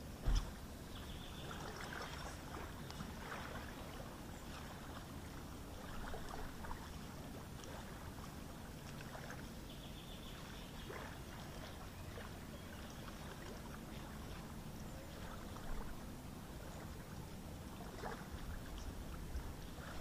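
Faint waterside ambience: water lapping gently, with scattered faint clicks and a low thump a moment in.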